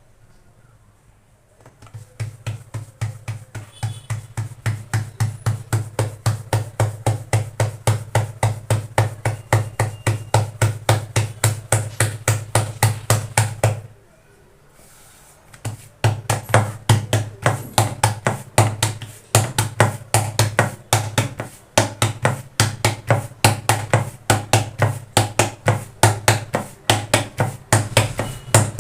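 Hands patting jowar flatbread dough flat on a board, dull slaps at about three a second. The patting pauses briefly about halfway through, then picks up again.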